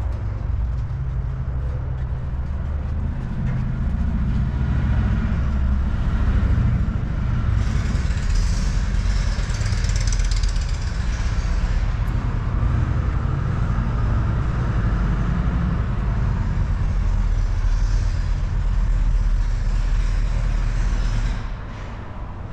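Steady low rumble of motor vehicle traffic, with no speech over it; it drops off sharply near the end.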